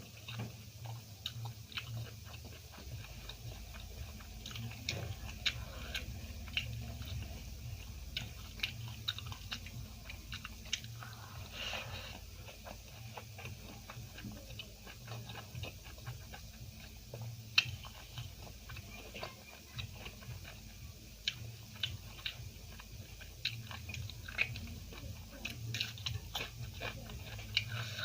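Close-up chewing and biting of food, a steady run of many small sharp clicks, with one louder click a little past halfway.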